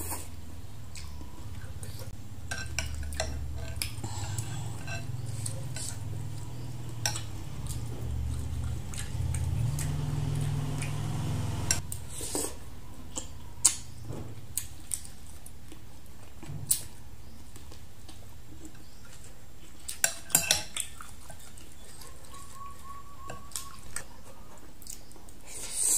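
A metal spoon clinking and scraping against a glass bowl of noodle soup during close-up eating, with a low rumble through the first half and a slurp of noodles at the end.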